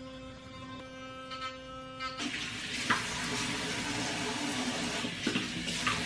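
Electric toothbrush buzzing steadily, with a brief break about a second in. It stops about two seconds in, and a tap runs water into a bathroom sink, with a few splashes.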